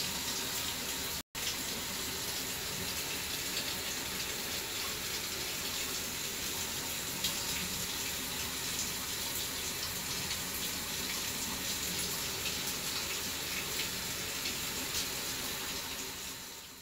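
Steady running water, like a tap running into a sink, cut off for an instant about a second in and fading out at the end.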